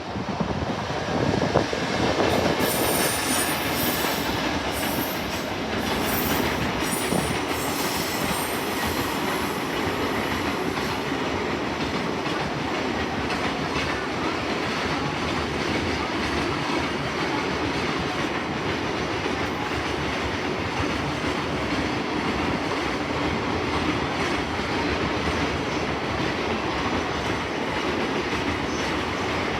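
Train running past the station platform: a loud, steady rush of wheels on rail that starts abruptly about a second and a half in and keeps going. Between about 2 and 11 seconds in, a flickering high-pitched wheel squeal rides on top.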